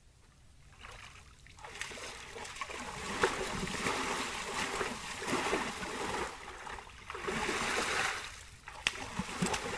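Red deer stag splashing in a shallow pool, thrashing its antlers through the water and stepping about. The splashing starts about a second and a half in and comes in uneven bouts with short pauses.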